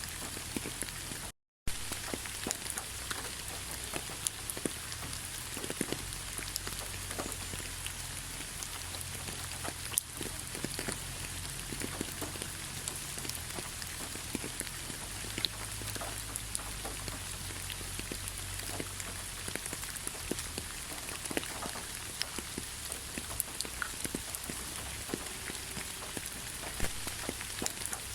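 Steady rain falling on a surface, with many separate drops ticking through an even hiss and a faint low rumble underneath. The sound cuts out completely for a moment about a second and a half in.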